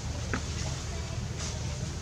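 Outdoor ambience: a steady low rumble, with one sharp click about a third of a second in and a few faint short high chirps.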